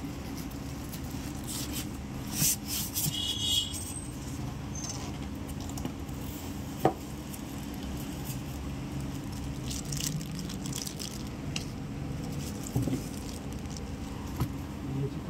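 Handling of a TV's cardboard carton and its plastic and foam packing: scattered rustles and scrapes over a steady background hum, with a sharp knock about seven seconds in.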